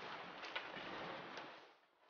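Faint rustling of paper and books being handled, with two light clicks, fading out toward the end.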